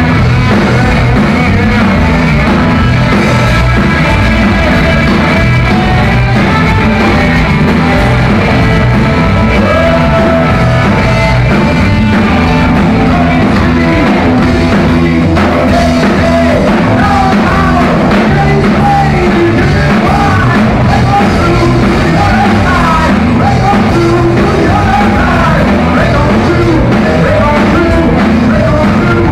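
Live rock band playing loud, with electric guitar, bass and drums, and a man singing over it from partway through.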